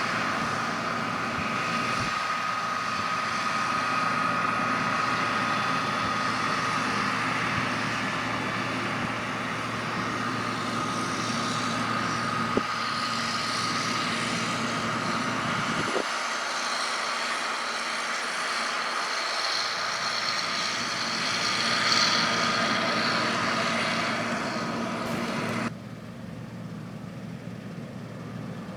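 John Deere 9650 STS combine running in the field: a steady mechanical drone with a high whine through it, and two short clicks in the middle. About three seconds before the end the sound drops suddenly to a quieter, duller level.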